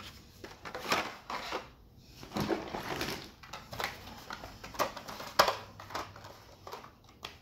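Plastic blister-card packaging of toy cars being handled and set down: irregular crinkles, crackles and light knocks, the sharpest about five and a half seconds in.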